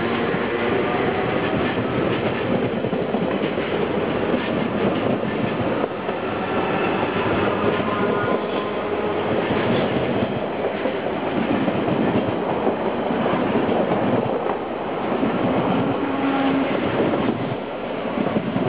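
Z 6100 electric multiple unit, three sets coupled, pulling out and picking up speed. Its motors give a rising whine in the first couple of seconds, then the wheels clatter over rail joints and points as the carriages pass close by, fading a little near the end.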